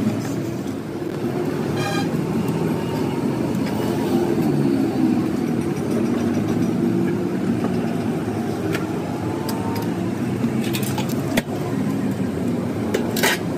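Steady low mechanical drone, with a few sharp metallic clinks and knocks near the end as sheet-metal radiator parts are handled.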